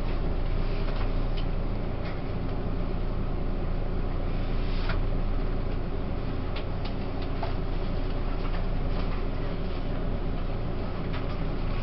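Running noise inside a coach of a Taiwan Railways E1000 push-pull Tze-Chiang express train: a steady low rumble of the train under way, with scattered faint clicks and creaks.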